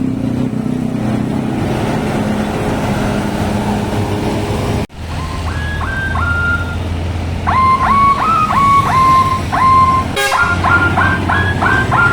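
A bus engine running steadily, then, after an abrupt cut about five seconds in, a telolet horn playing quick multi-note tunes whose notes jump up and down in pitch, with a second abrupt cut near the end and faster note runs after it.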